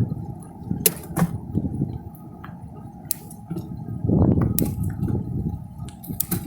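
Lectric 2.0 electric bike being ridden: a low rumble of wind and road noise, broken by about half a dozen sharp metallic clicks and rattles.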